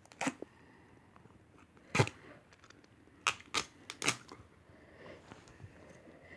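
A handful of short, light clicks and knocks, the loudest about two seconds in, with a quick cluster of three between three and four seconds.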